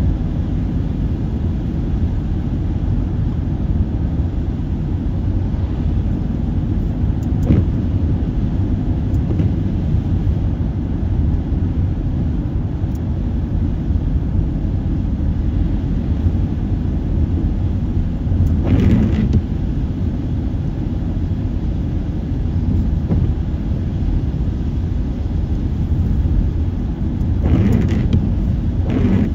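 Car driving along a highway: a steady low road and tyre rumble, with brief louder whooshes about two-thirds of the way in and again near the end.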